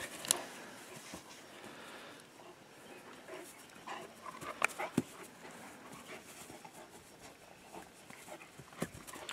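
Irish Wolfhound puppy panting, with a few short sharp clicks.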